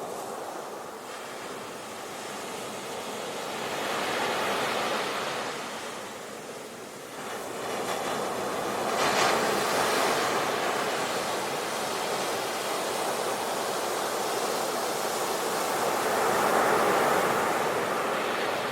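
Sea waves washing onto the shore, the surf swelling and ebbing in slow surges, with three louder breakers: about four seconds in, about nine seconds in with a sharp crash, and near the end.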